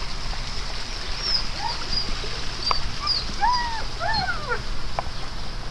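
A dog whining: a few short whimpers that rise and fall in pitch, about three and a half seconds in, over a steady hiss.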